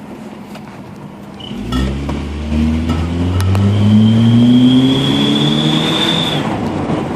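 2002 Mitsubishi Lancer's four-cylinder engine pulling away and accelerating from about a second and a half in, its pitch rising steadily. A high, thin whistle from the Turbo Whistler exhaust tip joins about halfway, rises a little with the revs and cuts off shortly before the end.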